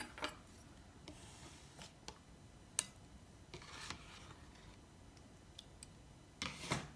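Faint clicks, taps and soft scraping of a spoon on a plastic yogurt tub and a glass mixing bowl as plain yogurt is scooped onto cubed raw chicken for a marinade. There is a sharper click about three seconds in.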